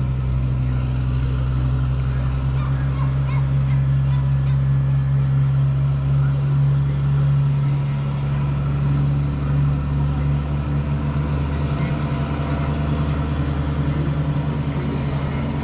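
A heavy vehicle's engine running at idle close by: a steady, loud, low hum.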